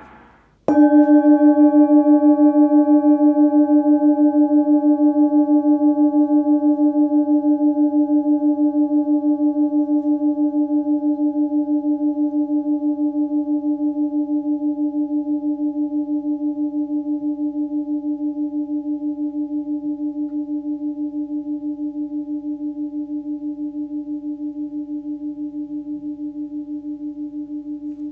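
A 16 cm hand-forged singing bowl tuned to about 299 Hz (D) is struck once, about a second in. It then rings on a single deep note with a few higher overtones, fading slowly with an even wavering pulse while the higher overtones die away first.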